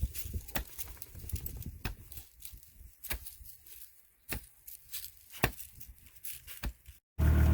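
Manual post hole digger blades chopping into the ground: scattered sharp knocks at uneven intervals. Near the end, after a brief cut, an engine is running steadily and loud.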